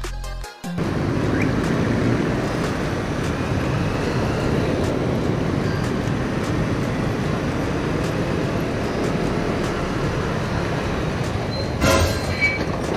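Riding noise from a motorcycle in slow city traffic: a steady rush of wind and road noise over the bike and the surrounding traffic. A sudden sharp knock comes near the end.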